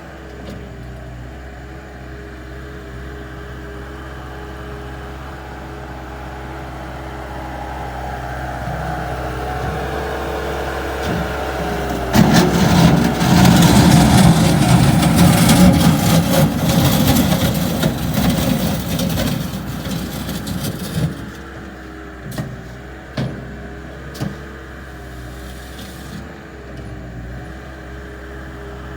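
Bobcat 863G skid steer loader's diesel engine running, building up from about eight seconds in to a loud, rough stretch of working under load that lasts about nine seconds. It then settles back to a steadier run, with a few sharp knocks.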